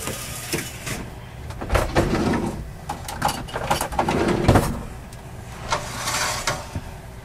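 Kitchen cabinet drawer being opened and rummaged, with utensils clattering in two bursts, about two seconds and four and a half seconds in, as a spatula is taken out. A steady low hum runs underneath.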